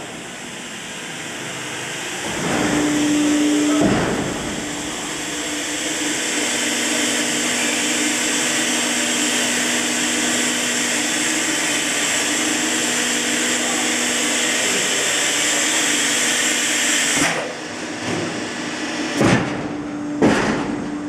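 Hot plate plastic welding machine running: a steady whirring hiss over a low hum, swelling briefly early on, then dropping away near the end, when a few sharp knocks are heard.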